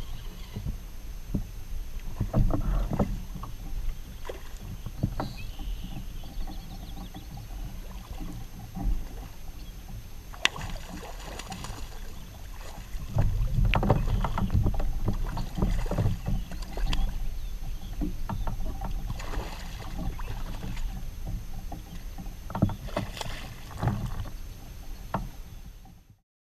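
Hooked redfish splashing and thrashing at the side of a plastic fishing kayak, with irregular knocks and clicks on the hull and a low wind rumble on the microphone; the splashing is loudest about halfway through.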